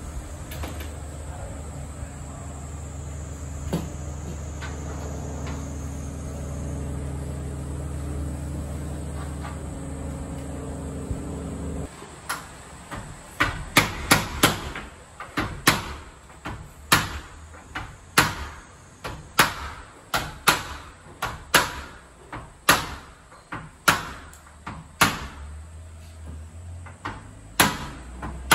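A steady low machine hum that cuts off suddenly about twelve seconds in, followed by a long run of sharp hammer blows, a little under two a second, with a quick flurry of strikes just after the hum stops.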